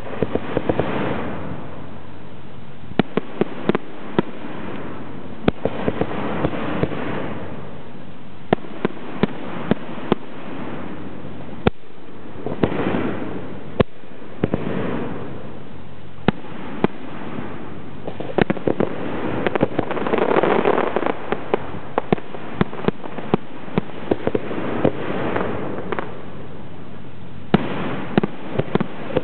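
Zambelli aerial fireworks display: shells bursting in a long irregular series of sharp bangs, sometimes several in quick succession, over a rushing hiss that swells and fades between them.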